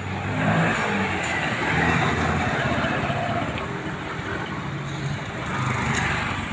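Street traffic: a passing motor vehicle's engine hum and road noise swell about two seconds in, ease off, then rise again near the end as another vehicle approaches.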